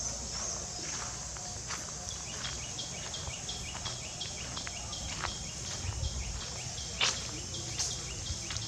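Forest insects keep up a steady high-pitched drone. A repeated chirp sounds about three times a second through the middle, and scattered small clicks and rustles come from the forest floor.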